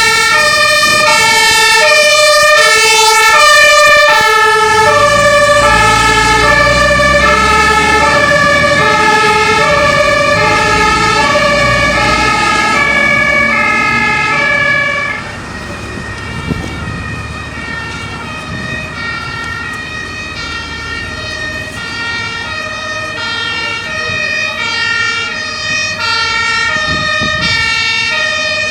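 German emergency vehicles' two-tone sirens stepping back and forth between a high and a low note, with more than one siren sounding at once. A heavy vehicle's engine rumbles under them for a while. About halfway through the sound drops sharply in level and the sirens go on more quietly.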